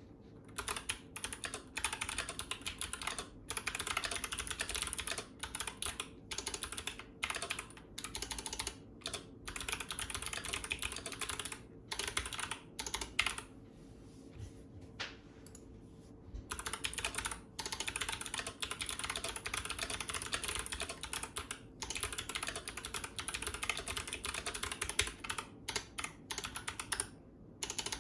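Fast typing on a custom ID80 mechanical keyboard fitted with Kailh Box Jade clicky switches, GMK keycaps and PCB foam: a dense stream of sharp clicky keystrokes, picked up on a phone's microphone. The typing is broken by brief pauses, the longest about halfway through.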